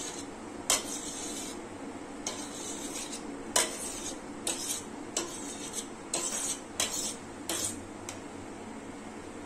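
Steel spoon stirring soaked chia seeds in a stainless steel bowl, scraping and clinking against the bowl at uneven intervals, about eight strokes.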